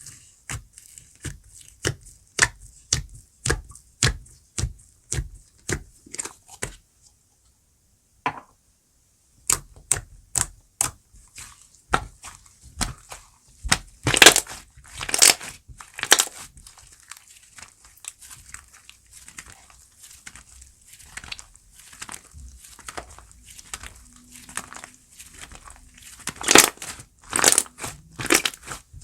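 Slime being squeezed and pressed by hand, making a run of sharp crackling pops and clicks. They come about two a second at first, stop briefly, then return denser and louder, with the biggest pops around the middle and near the end.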